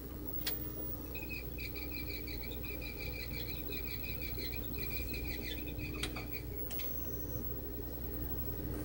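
Soundtrack of a VHS tape playing through the Toshiba TV/VCR combo's built-in speaker: a run of rapid high chirping from about a second in to nearly seven seconds, over a steady hum, with a few sharp clicks.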